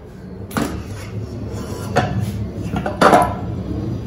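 Metal rice pot (thavalai) being handled after the starch water has been drained off: a few separate knocks and clanks, the loudest about three seconds in.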